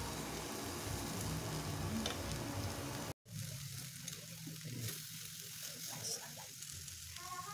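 Beef satay skewers sizzling steadily on a hot ridged grill pan as they are turned. The sound cuts out for a moment about three seconds in.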